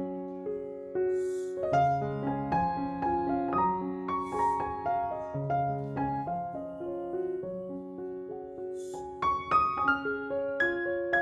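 Background piano music: a slow melody over held chords, with a louder run of higher notes near the end.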